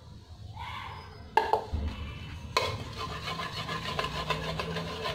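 A small hand whisk beating semolina into curd in a bowl. Two sharp knocks come in the first half, then a steady run of rapid scraping strokes.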